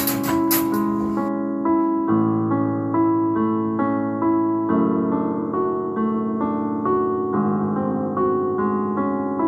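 Piano music: a light melody of single notes over held lower chords that change every second or two.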